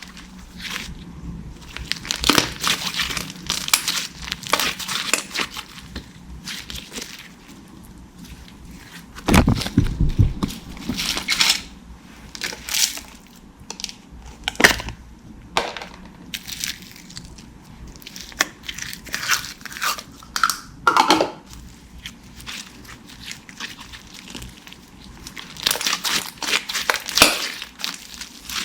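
Glossy slime being squished and kneaded by hand, giving irregular crackling pops and squelches, with a louder, deeper squish about a third of the way in.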